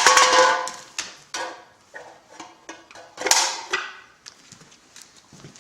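Clattering knocks and clicks as a dog fetches a beer from a refrigerator: a loud ringing clatter at the start, a run of sharp knocks, and another clatter about three seconds in.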